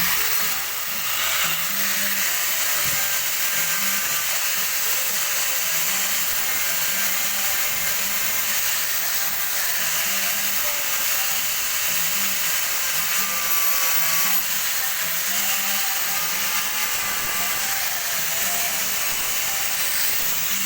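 Electric power tool running steadily with a continuous hiss, working on the hammer during its restoration.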